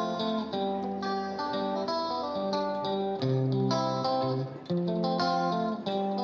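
Instrumental background music, a plucked guitar melody over chords, with a brief pause about four and a half seconds in.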